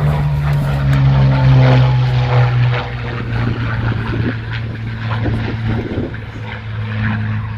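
Propeller aircraft engine droning steadily as a plane flies by, its note dropping in pitch about three seconds in.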